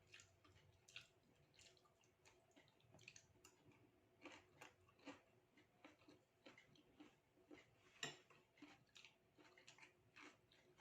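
Faint sounds of a person eating: soft chewing with small irregular clicks and crackles, one sharper click about eight seconds in.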